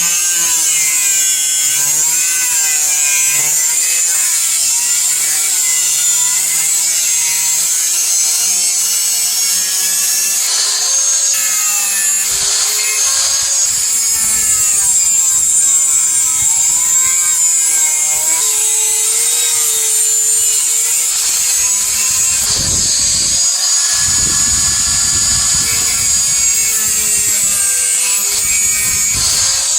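Power grinder grinding the steel of a coil-spring blade: a continuous high hissing rasp with a motor whine whose pitch dips and rises as the tool is pressed and eased.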